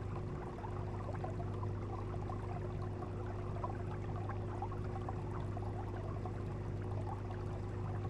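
Aquarium water trickling and bubbling steadily, with a constant low hum underneath.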